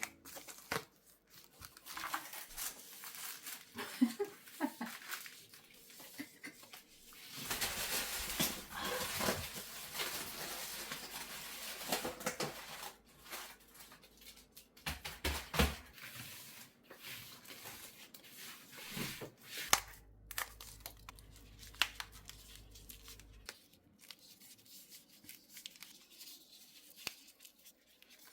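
Rustling and tearing of a thin sheet being handled, with scattered small clicks and knocks.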